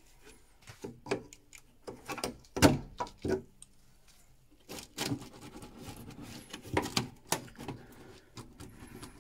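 Pair of metal grips clicking and knocking against the plastic clips and casing as the front clips of an Ideal Logic combi boiler's sump are undone: scattered sharp clicks and clatter in small clusters, with quiet gaps between.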